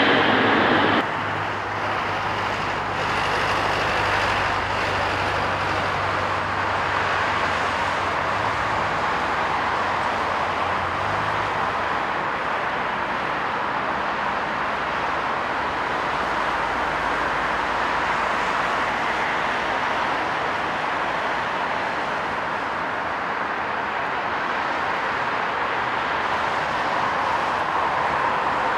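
Boeing 777-300ER's GE90 turbofans heard on final approach, a steady rushing jet noise. About a second in, it replaces the louder, whining sound of a close taxiing jet.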